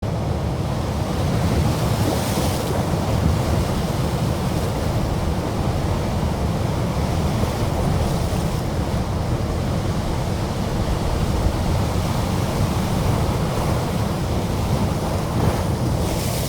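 Steady rushing of surf and wind, deep and continuous, with a brief hissing wash about two seconds in and another near the end.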